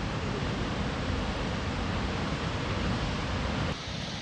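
Steady rushing of falling water from Snoqualmie Falls, an even noise with no distinct events. About three and a half seconds in it changes abruptly to a slightly quieter, thinner rush.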